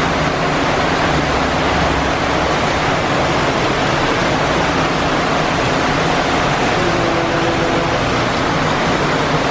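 Steady loud rush of heavy rain and floodwater pouring down a street, with the low hum of car engines driving through the water beneath it.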